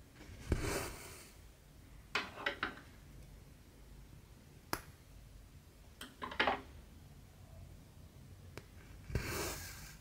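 Hand cross-stitching: cotton thread drawn through 11-count cross-stitch fabric in short rasping pulls, a longer pull near the start and another near the end, with a couple of sharp clicks in between.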